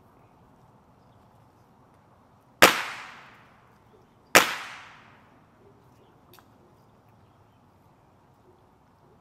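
Two shots from a training pistol of the kind used in dog protection sports, about a second and a half apart, each loud and sharp with an echo that dies away over about a second.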